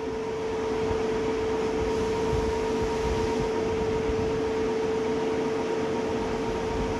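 Electric fan running steadily in a small tiled room: an even whirring hiss with a constant low hum tone.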